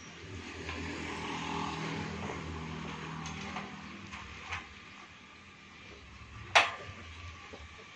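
A vehicle passing on the road, its hum swelling in the first few seconds and fading, then a few light knocks and one sharp metallic clank about six and a half seconds in as the steel frame pole and ladder are shifted.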